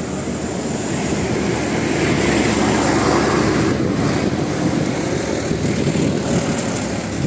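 A heavy vehicle's engine runs loudly with a steady low drone, growing a little louder over the first two seconds.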